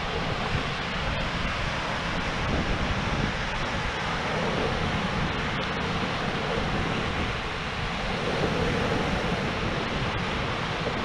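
Sea waves breaking and washing on a pebble beach, a steady rushing noise, with wind blowing on the microphone.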